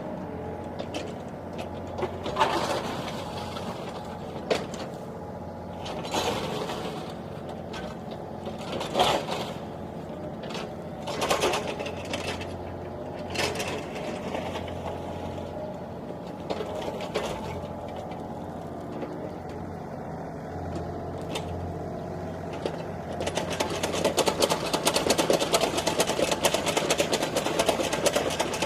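A machine running with a steady low hum and a sharp clack every two seconds or so, then a fast, even mechanical clatter in the last few seconds.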